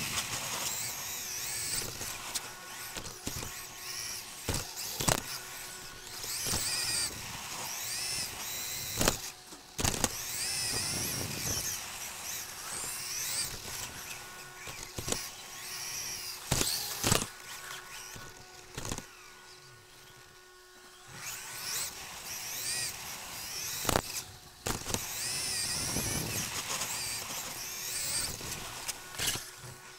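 Xray XB2 2WD electric RC buggy, heard from on board: its 13.5-turn brushless motor whines up and down in pitch with the throttle over tyre rush, with several sharp knocks along the way. It goes quieter for a few seconds about two-thirds of the way through.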